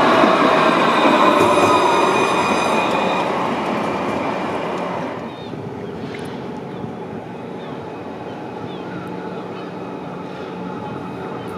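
Luas light-rail tram (Alstom Citadis) running past and away, its drive whining in several high tones that sink slightly in pitch as the sound fades. About five seconds in the sound drops suddenly to a much quieter street background.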